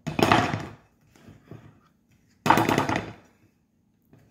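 Upturned ring-shaped cake pan shaken and knocked against a glass plate to loosen and release the cake: two short rattling bursts of knocks, about two and a half seconds apart.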